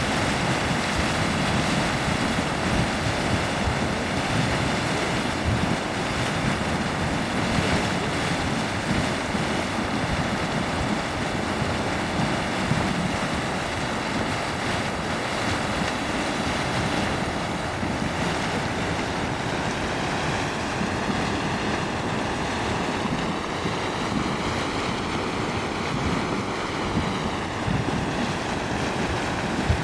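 Steady rushing hiss of a steaming hydrothermal vent, with wind buffeting the microphone.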